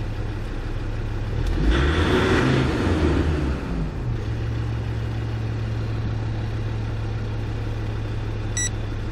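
Land Rover Discovery 2 Td5 five-cylinder turbo diesel idling steadily. About a second and a half in it briefly revs up and falls back to idle within a couple of seconds. A short electronic beep near the end.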